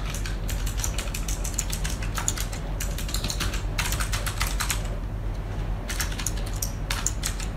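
Typing on a computer keyboard: quick runs of keystrokes with short pauses between them, over a low steady hum.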